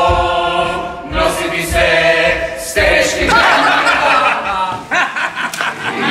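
A choir of voices singing, with sudden changes in the sound about a second in and again near three seconds.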